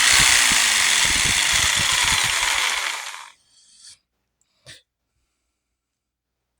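Blue Ridge 4.5-amp jigsaw motor and blade running, then winding down and stopping about three seconds in. A short click follows near the five-second mark.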